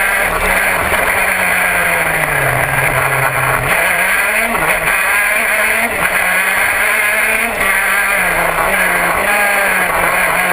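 Vortex 125cc two-stroke KZ2 gearbox kart engine at racing speed, heard from on board. The revs drop low about two and a half seconds in, hold for about a second, then climb again, and dip and rise briefly a few more times through the lap.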